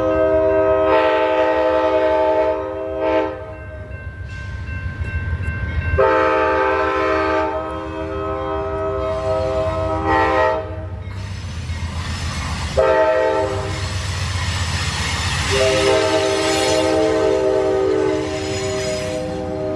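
Amtrak GE Genesis diesel locomotive sounding its chime horn in the grade-crossing pattern: a long blast that ends about three seconds in, another long blast from about six seconds, a short one near thirteen seconds, and a long one from about sixteen seconds on. Under the horn runs the low rumble of the diesel engine and the train on the rails as the locomotive passes close.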